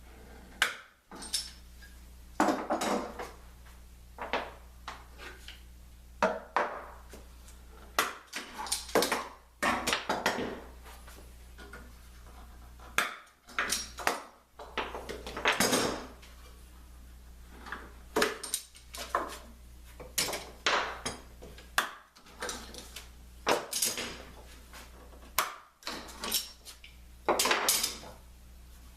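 Metal bar clamps and wooden clamping blocks being loosened and handled on a glued-up wood lamination: irregular clanks, rattles and wooden knocks.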